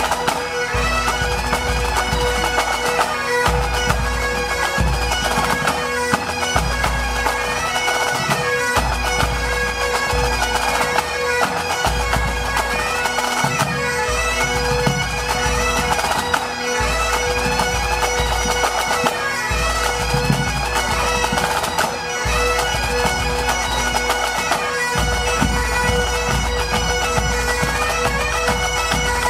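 Pipe band playing: Great Highland bagpipes sounding a melody over their steady drone, with the band's drums beating beneath.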